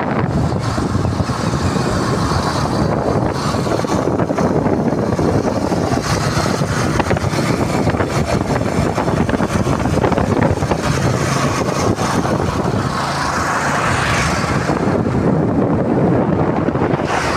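Wind rushing over the microphone of a moving motorcycle, mixed with engine and tyre noise, steady throughout.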